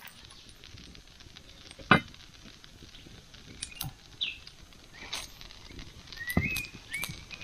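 A wooden spatula knocking and scraping in an iron pan of fried rice, with one sharp clank about two seconds in and a few lighter knocks later. A few short chirps come near the end.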